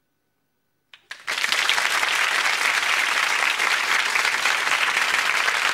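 Applause that starts suddenly after about a second of silence and then holds steady and dense.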